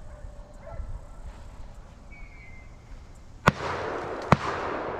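Two gunshots about a second and a half into the second half of the clip, less than a second apart, each echoing on afterwards.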